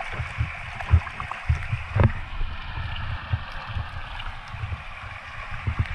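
A shallow stream running over rocks, with a hand splashing and digging among the stones under the water and irregular low thumps.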